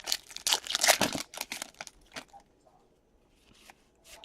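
Trading-card pack wrapper being torn open and crinkled, in a quick burst of crackling during the first second and a half, then a few light rustles and clicks.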